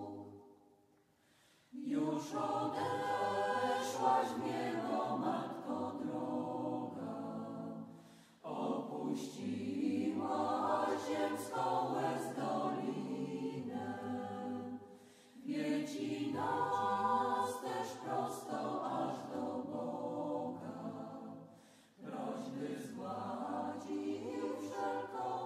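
A choir singing, in phrases of about six seconds each, with a brief pause between one phrase and the next.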